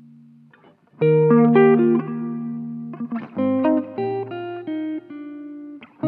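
Clean semi-hollow-body electric guitar playing slow ringing chords. A held chord fades out, there is a brief pause, and then fresh chords start about a second in and ring on, changing every second or so.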